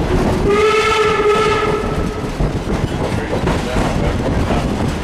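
A locomotive horn sounds one steady single-note blast of about two seconds, heard from inside the cab. Under it the train runs on with a continuous low rumble and the clickety-clack of wheels on the rails.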